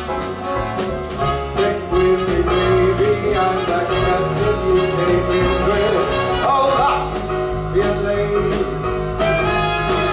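Live big-band swing accompaniment, with drum kit, piano, saxophone, trumpet and trombone, played with a steady drum beat and prominent brass.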